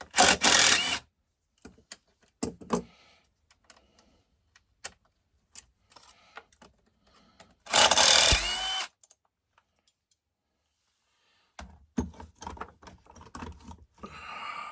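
Tools working on a chainsaw's bucking-dog fasteners: two loud bursts about a second long, one at the start and one about eight seconds in, with scattered clicks and metal clatter between and near the end.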